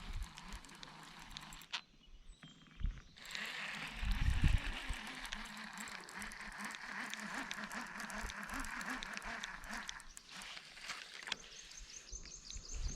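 Fishing reel cranked steadily, retrieving a crankbait: a whirring with a faint rhythmic pulse from the handle turns that starts after a low thump about four seconds in and stops about ten seconds in, with scattered small clicks.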